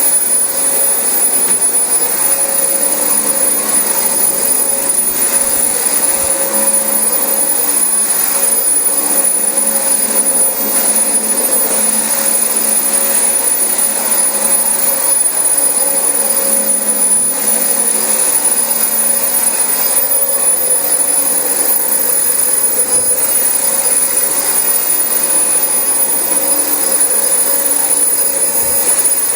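Dyson DC25 upright vacuum cleaner running steadily on carpet: an even motor rush with a thin high whine held steady throughout.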